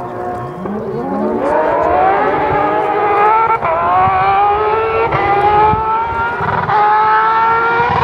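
Porsche 911 rally car's flat-six engine accelerating hard toward the listener at full throttle, its pitch climbing steadily and dropping sharply at three quick upshifts.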